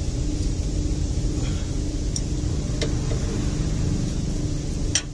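Steady low machine rumble with a few light metallic clicks as a strap filter wrench is fitted and worked on a diesel fuel filter: one about two seconds in, another near three seconds, and a sharper click near the end.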